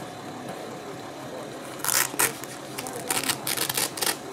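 Canvas vehicle awning and its straps being handled at the roof rail: a couple of short, sharp noises about two seconds in, then a quick run of them near the end.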